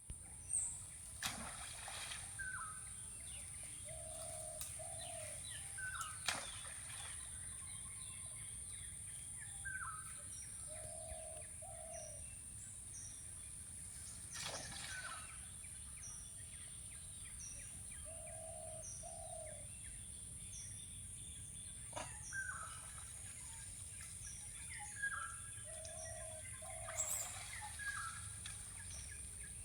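Outdoor bird calls: a low two-note call repeating roughly every seven seconds among short high chirps, over a steady high-pitched insect drone. A few brief sharp sounds break in now and then.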